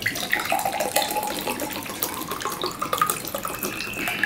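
Water poured from a plastic bottle into a glass tumbler, a continuous splashing pour.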